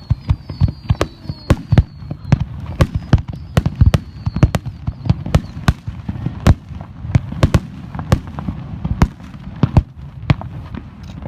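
Fireworks display: a rapid volley of shell bursts, several sharp bangs a second, with short falling whistles in the first few seconds, thinning out near the end.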